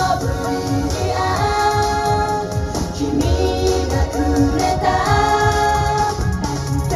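Female pop idol group singing together live into handheld microphones over a pop backing track, amplified through PA speakers; several voices hold long notes in unison.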